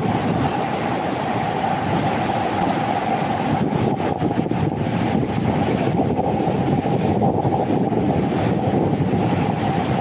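Steady loud rushing of the Krimml Waterfalls and the white-water Krimmler Ache torrent close by, with wind on the phone's microphone.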